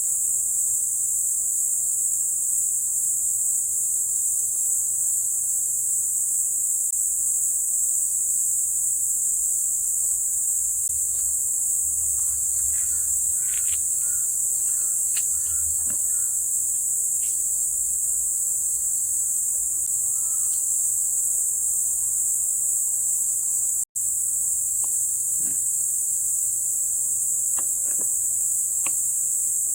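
A steady, high-pitched chorus of crickets, unbroken except for a momentary cut-out about three-quarters of the way through, with a few faint ticks beneath it.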